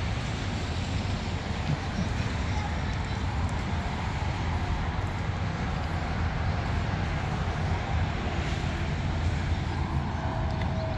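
Steady outdoor rumble of wind buffeting the microphone, mixed with the hiss of road traffic. A faint steady whine comes in near the end.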